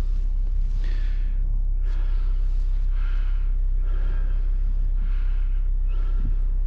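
A person breathing hard, about one breath a second, over a steady low rumble.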